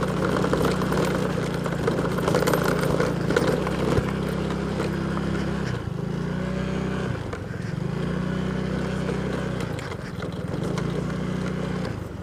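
Motorcycle engine running steadily while riding a rough stone track. The engine note drops and picks up again a few times in the second half.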